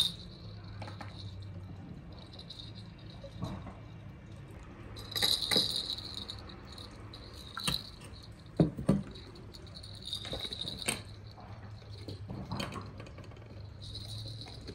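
Plastic baby bottle and plastic juice jug being handled: light clicks and knocks as the bottle's cap comes off, juice is poured in and the cap is screwed back on. A baby's toy rattle jingles in short spells a few times, around five seconds in, again near ten seconds, and near the end.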